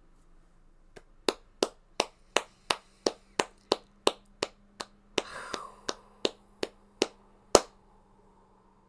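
One person clapping hands in a steady rhythm, about three claps a second for some six seconds, ending on one louder clap.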